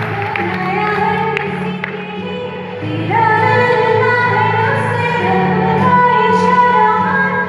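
A woman singing a melody with musical accompaniment, her voice rising and getting louder about three seconds in.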